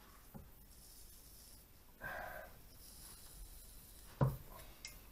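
Faint handling sounds of dogfish skin being pulled off with pliers on a wooden cutting board: a short breathy sound about two seconds in and a single knock a little after four seconds, with a small click just after.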